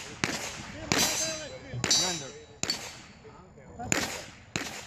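Pistol shots from other shooters on nearby range bays: about six sharp reports, spaced irregularly, each with a short ringing echo.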